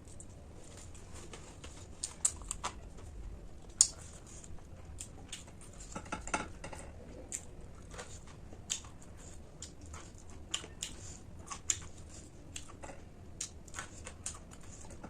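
Close-miked chewing and crunching of crisp snack food, a run of many short, irregular crunches.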